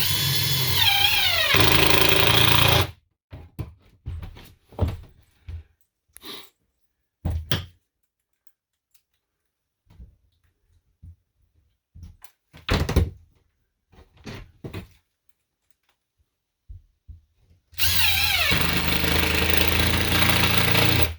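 Power drill driving wood screws into a 2x4 bed-frame extension: two runs of about three seconds each, the motor rising in pitch as it spins up, one at the start and one near the end. Scattered knocks and handling between them.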